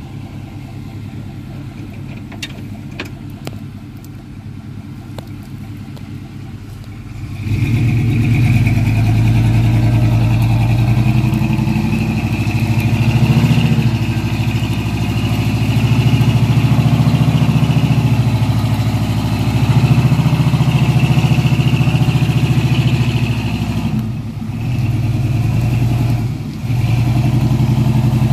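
Pickup truck engine idling, then about seven and a half seconds in revving up hard and holding high revs that rise and fall, with two short let-offs near the end, as the truck works in deep mud.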